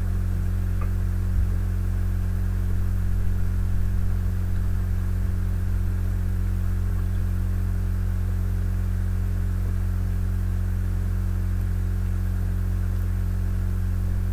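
Steady low electrical mains hum made of several fixed tones, with faint irregular low bumps in the first few seconds.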